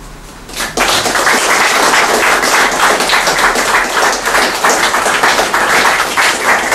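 Audience applauding: dense, steady clapping that starts suddenly under a second in, right after a speech ends.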